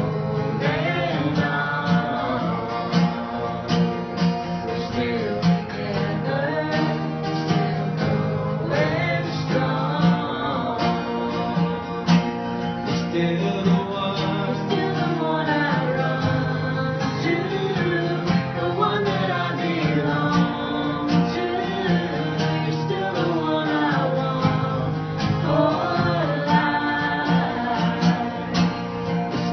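Music with strummed guitar and a singing voice, at a steady level.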